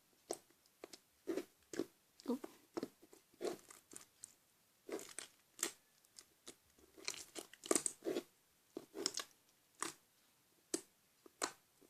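Clear slime made from transparent glue and borax glycerin being squeezed and kneaded by hand, making irregular small wet clicks and pops.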